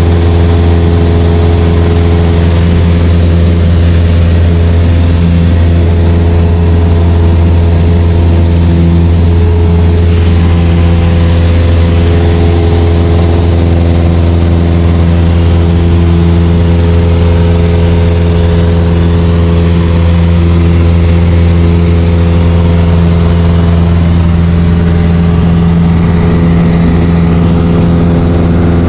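Light aircraft's piston engine and propeller running steadily in cruise, heard loud from inside the cabin as an even drone with a strong low hum that holds one pitch throughout.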